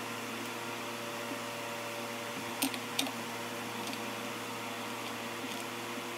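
Steady mechanical hum with a few fixed tones, broken by two sharp clicks about two and a half and three seconds in, from a plastic headlight housing and its wiring being handled.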